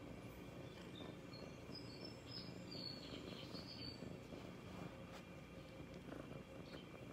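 A young white cat purring faintly as it is stroked, a steady low rumble. A few faint high chirps come between about one and four seconds in.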